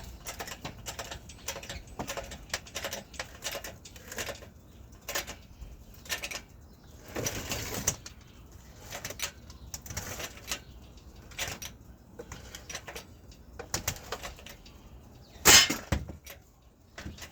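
Hand tools working on an engine: scattered clicks and knocks of metal on metal, a brief rasping sound about seven seconds in, and a loud clank near the end.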